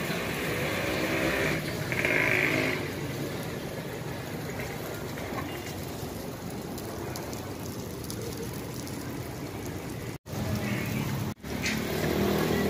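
Steady hiss of a hot egg-ring griddle sizzling, mixed with street traffic. Brief low voices come near the start and end, and the sound cuts out for an instant twice near the end.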